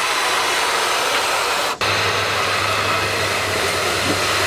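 Water spraying from a hose into a rain gutter, a steady loud rush, washing sand and grit out of it. It breaks off for an instant about two seconds in, and a low steady hum sits under it after that.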